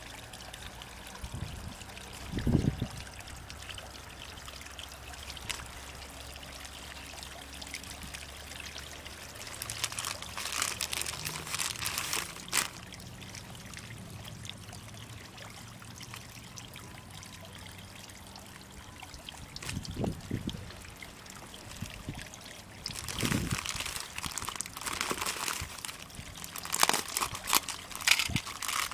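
Water trickling and pouring steadily, with louder spells of rushing, splashing water about ten seconds in and again over the last few seconds, and a couple of dull low thumps.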